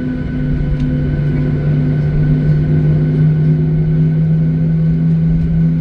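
Jet airliner engines heard inside the passenger cabin: a steady drone with a low hum that rises slightly in pitch and a fainter throbbing beat two or three times a second.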